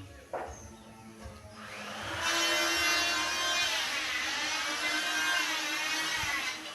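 An electric power tool runs for about four seconds with a high whine. Its pitch sags in the middle, as when the motor is loaded while working wood, then recovers before it stops.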